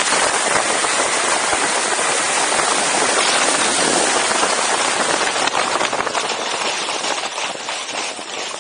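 Loud rushing wind noise from high-speed airflow over the camera's microphone during a speedriding descent, easing off near the end as the rider slows.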